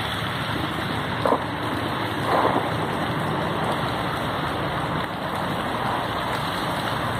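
Heavy rain falling steadily, a constant hiss over a low steady hum, with two faint short knocks about a second and two and a half seconds in.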